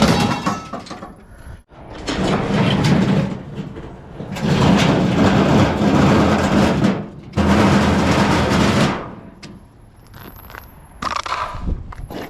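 Scrap being handled and pulled at in a dumpster: five loud bursts of scraping, cracking and rattling, each lasting one to two and a half seconds, with short lulls between them.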